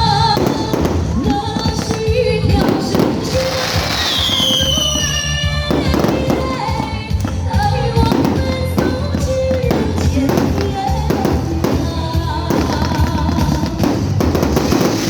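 Fireworks going off in repeated bangs, mixed with loud music with singing.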